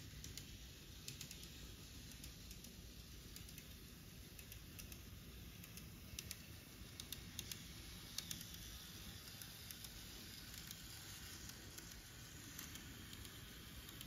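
Model JNR KIHA 07 railcar running on plastic viaduct track: a faint rolling noise with irregular light clicks as the wheels pass the rail joints.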